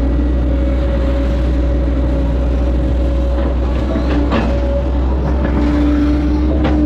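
Hitachi excavator's diesel engine running steadily under load as it digs, with a steady whine that grows louder near the end and a few brief knocks as the bucket works the ditch.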